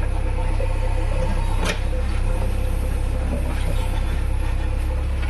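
JCB 3DX backhoe loader's diesel engine running steadily, with a single sharp knock a little under two seconds in.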